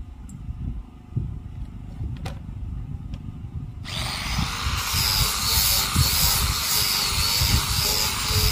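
Wind rumbling on the microphone, then about four seconds in a handheld electric sander starts up and runs steadily, sanding a wooden frame.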